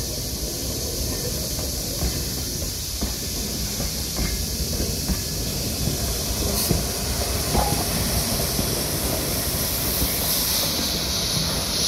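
Streamlined C38 class 4-6-2 steam locomotive 3801 rolling past with a steady low rumble and irregular clanks from its wheels and running gear. A loud steam hiss comes in near the end.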